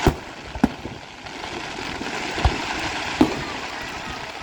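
Fireworks going off: about five sharp booms at irregular intervals over a steady crackling hiss.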